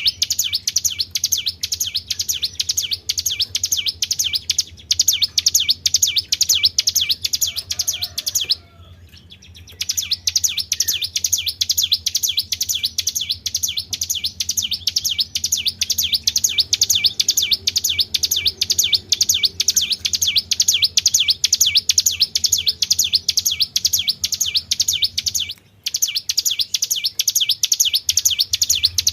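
A small songbird's high-pitched song of rapid, evenly repeated chirps, several a second, with a pause of about a second near a third of the way in and a brief break near the end. A steady low hum runs underneath.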